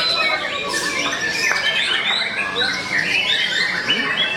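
Many songbirds singing at once: dense, overlapping chirps, trills and squawky calls with no pause, over a faint background murmur.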